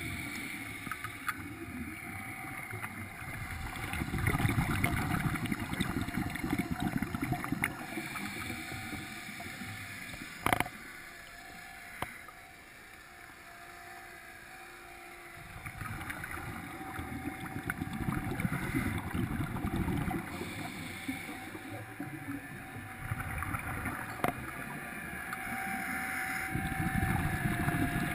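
Underwater ambient noise picked up by a submerged camera: a low rumble and watery churn that swells and eases over several seconds, with a sharp click about ten seconds in and another near the end.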